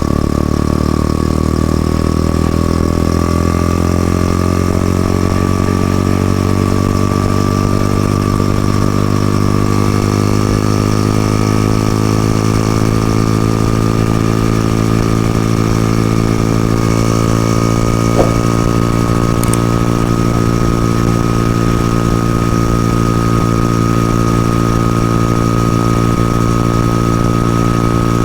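Stock Yamaha FZS-V3's single-cylinder engine and exhaust under way at highway speed. The engine note climbs over the first few seconds as the bike accelerates, then holds steady, with a thin steady whine above it.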